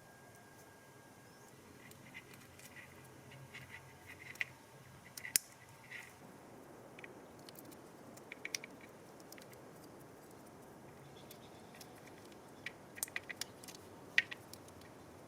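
Scattered light clicks and ticks of small tools and wire connector pins being handled. The clicks come in clusters about four to six seconds in and again near the end, over a faint low hum.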